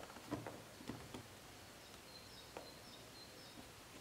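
Faint clicks and light scraping of a screwdriver and small parts worked at the side-mirror mount inside a Mercedes W124's front door, mostly in the first second and a half. A few faint, high bird chirps come in the second half.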